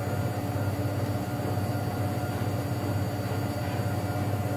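A steady low electrical hum with a few fixed tones, unchanging throughout.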